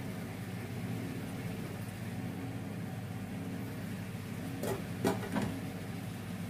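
A steady low hum throughout, and about two-thirds of the way in three quick clinks as the glass lid of a small cooking pot is handled and set back on it.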